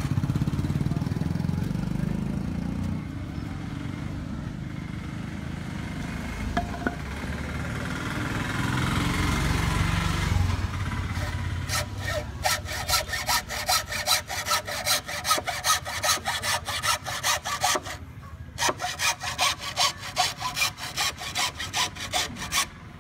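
Hacksaw cutting through green bamboo, with quick, even back-and-forth strokes at about three a second through the second half and a brief pause near the end. A low rumble fills the first half.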